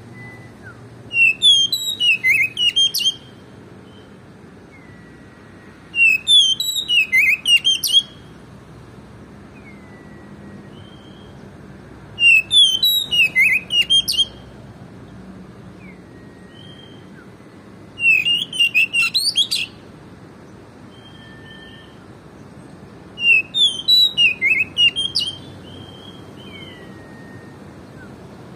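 Male oriental magpie-robin (kacer) in full song: five loud bursts of rapid, varied whistled phrases, each about two seconds long, coming about every five to six seconds, with a few soft single whistled notes in the gaps.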